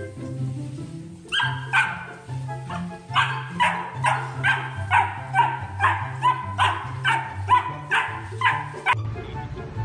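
A puppy barking in a rapid run of high-pitched yips, about two to three a second, starting just over a second in and stopping near the end, as it play-attacks a moving floor mop. Background music plays underneath.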